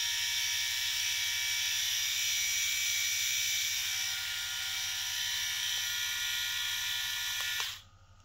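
Pritech RSM 1505 three-head rotary electric shaver running freely in the hand, not on skin: a steady high-pitched motor whine with hiss. It is switched off and stops abruptly shortly before the end.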